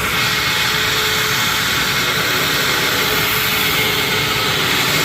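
Hoover WindTunnel Anniversary upright vacuum running steadily with its brush roll switched off: the suction motor makes a loud, even rush of air.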